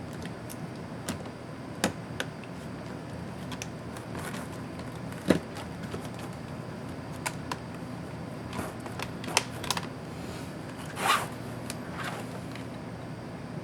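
Small clicks and taps of laptop parts and tools being handled during disassembly of a Lenovo IdeaPad S210, with a louder knock about five seconds in and a brief scrape near the end, over a steady low hum.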